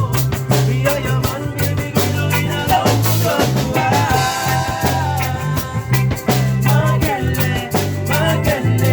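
Live band playing an instrumental break with drum kit, bass and guitar over a steady beat.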